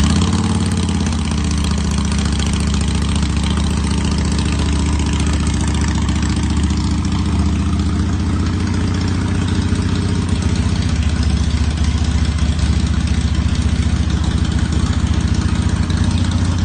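Harley-Davidson Sportster Iron 883 air-cooled V-twin, big-bored to 1250 cc with a Hammer Performance kit, idling steadily.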